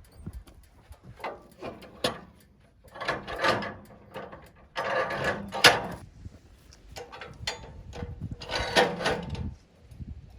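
Freshly sawn cedar being handled at the sawmill: irregular wooden knocks and scraping, with a few sharp knocks and three longer scraping stretches.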